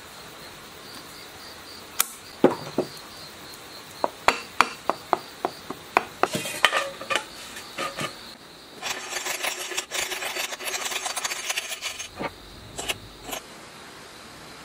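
Hand reassembly of a single-phase electric motor: a run of sharp clicks and taps as metal and plastic parts of the centrifugal-switch end and end cover are fitted, then a few seconds of scraping and rubbing, then a few more clicks.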